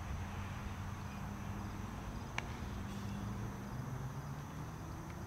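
Insects chirping steadily in the background, with a low steady hum underneath and one brief sharp click about two and a half seconds in.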